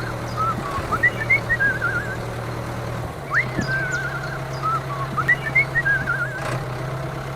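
A whistled call that repeats twice, each time a sharp upward sweep into a warbling trill with a few short chirps. It plays over a steady low hum like a small motor running.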